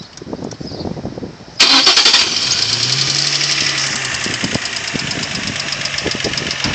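A 2003 Infiniti G35 sedan's 3.5-litre V6 starting about a second and a half in, loud for a moment and then settling to idle. Over the idle runs a loud, fast, even ticking from the engine, the knock the owner cannot explain.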